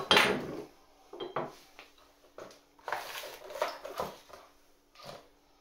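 Small cardboard boxes and aluminium kit parts being handled and set down on a worktop: a sliding rustle at the start, then a scatter of light knocks, taps and rustles.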